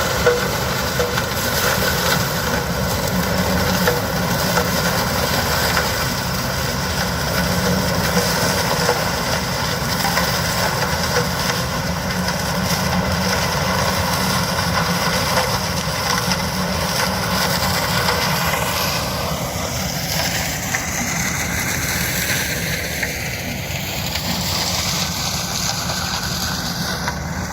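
Yanmar HS2000 sugarcane harvester (187 hp) running, its engine and machinery giving a loud, steady drone. Over the last several seconds the upper part of the sound sweeps up and down in tone.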